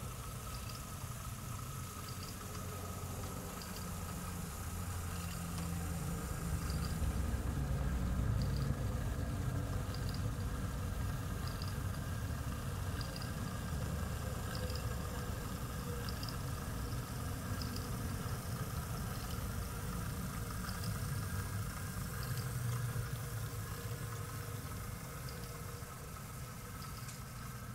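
Model railway train, a class 08 diesel shunter with coaches, running on the layout: a steady low rumble with faint regular ticks about every second and a half.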